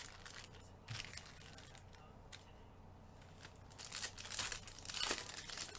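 Foil trading-card pack wrapper crinkling in gloved hands, then torn open. The crinkling and tearing is densest and loudest about four to five and a half seconds in.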